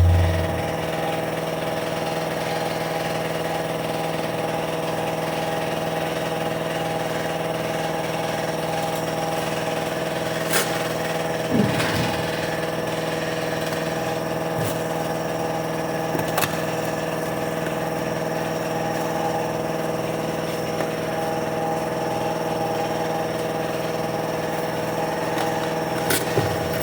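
Air compressor running steadily with a constant hum, with a few short clicks and knocks over it.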